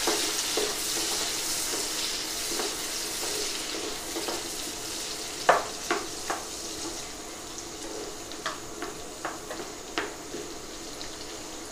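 Freshly added chopped onions sizzling in hot oil in a kadai while being stirred with a wooden spatula; the sizzle slowly quietens. In the second half the spatula taps and scrapes against the pan several times.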